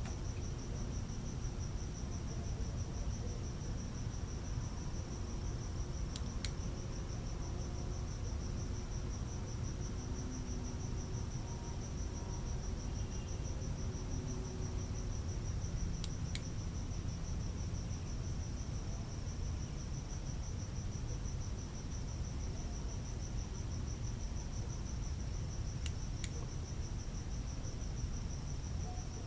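Crickets trilling steadily in a night chorus, with a continuous low rumble underneath. Three times, about ten seconds apart, comes a quick pair of sharp clicks.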